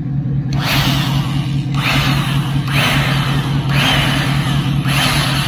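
A motor runs with a steady low hum, and a hissing whoosh repeats about once a second over it.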